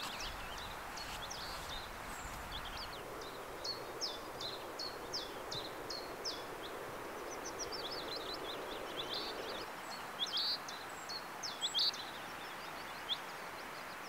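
Small songbirds singing in gorse scrub: short high notes repeated in quick runs, a few louder calls near the end, over a steady background hiss.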